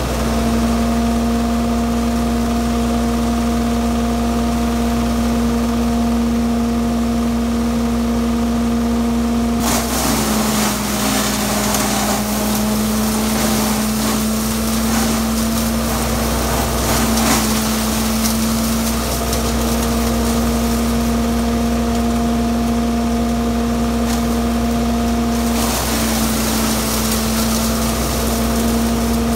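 John Deere 850 tractor running a Harper Goosen CS-5400 chipper shredder off its PTO with a steady hum. About ten seconds in, branches are fed through and chipped with a crackling, splintering rasp for about nine seconds, the machine's pitch sagging briefly under the load. Chipping starts again a few seconds before the end.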